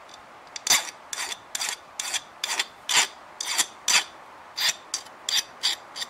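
Hand file rasping over the end of a copper lug in quick short strokes, about two to three a second, lightly rounding off its edges.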